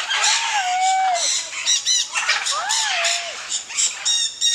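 Birds squawking close by, several calling over one another: drawn-out calls that bend up and down in pitch, mixed with short, harsh squawks.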